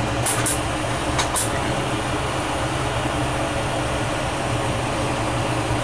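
Glassworking bench torch burning steadily, a constant hiss over a low hum, with three light sharp clicks in the first second and a half.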